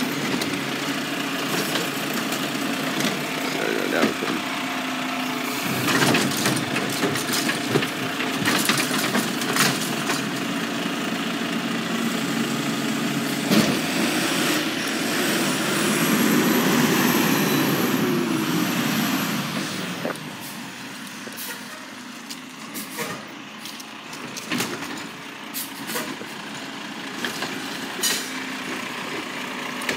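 Automated side-loading garbage truck running at the curb, its diesel engine droning steadily with several sharp clanks. About halfway through it swells louder with a rising high whine for a few seconds, then drops back, as the truck works its hydraulic arm to lift and empty a trash cart.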